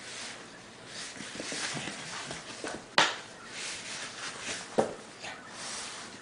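A puppy scuffling on a tile floor as it plays with a foam pool noodle, with claws clicking and scraping. A sharp knock about three seconds in and a shorter sharp sound nearly two seconds later.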